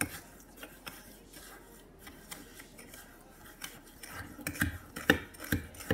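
A metal spoon stirring a gritty sugar and coconut-oil scrub in a glass tumbler: scraping with clinks of spoon against glass, faint for the first few seconds, then busier and louder with several sharp clinks in the last two seconds.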